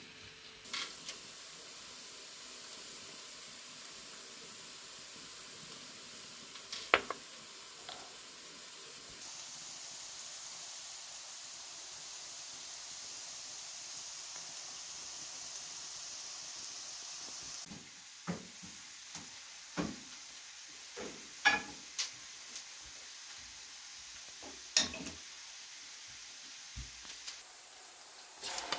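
Chopped onions sizzling steadily in hot oil in a frying pan. Several sharp knocks of spoons on the pan and bowl come in the second half.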